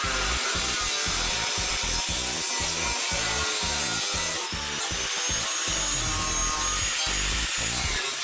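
Corded angle grinder with a cutoff wheel cutting through a rusty steel frame spar of a 1967 VW Bus: a steady grinding rasp, with a thin high whine joining about halfway through. It is making a pie cut about two blade widths wide in the rotten bottom of the spar, so the bent spar can be jacked up and the gap closed.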